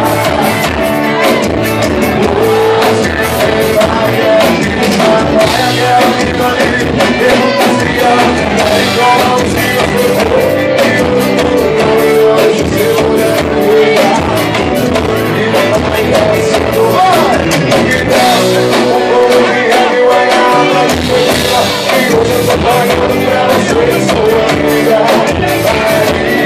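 Live band playing country music, loud and steady, with a driving beat.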